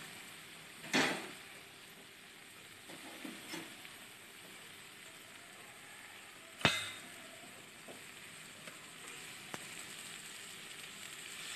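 Fish pieces and mustard-tomato curry paste sizzling softly in an aluminium kadai, with two sharp knocks, one about a second in and one past halfway. Water is then poured into the pan, and the sizzling grows louder toward the end.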